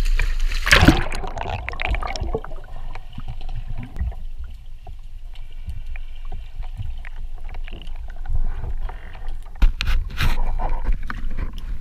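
Splashing at the surface as a spearfisher goes under, about a second in, followed by the low, muffled rumble of water heard underwater, with a cluster of sharp clicks and rushes of noise near the end.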